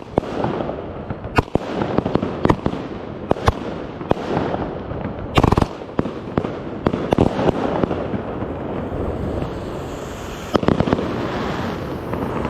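Consumer fireworks cake firing its shots close to the microphone: sharp bangs at uneven intervals over a continuous rushing hiss and crackle, with a lull of a couple of seconds before a last pair of shots.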